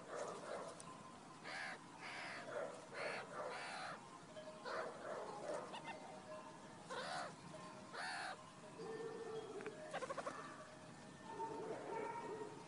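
Animal calls: a string of short bird-like calls, a quick rattling call about ten seconds in, then a few longer, lower calls near the end.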